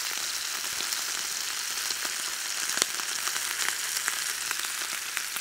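Steak searing in hot rice bran oil in a non-stick frying pan: a steady sizzle with scattered small pops.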